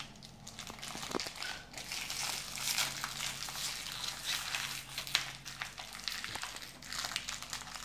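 Crinkling and crackling of a small wrapper being twisted and picked at by a child's fingers as she tries to tear it open by hand without scissors. The crinkles come irregularly, with a couple of sharper snaps.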